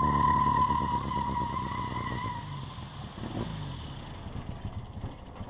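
A small sports car driving past and away, its engine note dropping in pitch and fading. A steady tyre squeal carries over the first two or so seconds.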